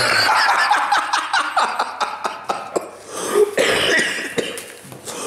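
Cardboard box flaps and the packing inside rustling and crinkling as a parcel is opened by hand, a quick run of crackles and clicks, followed by a short throaty vocal sound about three seconds in.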